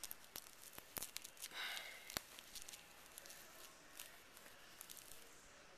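Handling of a plush squeeze toy, with scattered small clicks and a short tearing rasp about a second and a half in, like its velcro compartment being pulled open.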